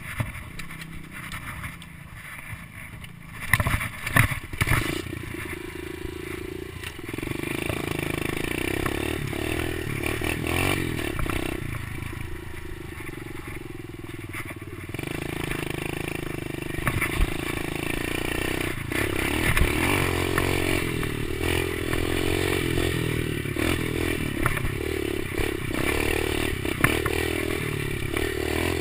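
Kawasaki KLX110 pit bike's small single-cylinder four-stroke engine, quiet at first, then pulling away and running up and down in revs as the bike rides a dirt trail. A few sharp knocks come about four seconds in, and there are scattered clatters and scrapes from the bike over the ground.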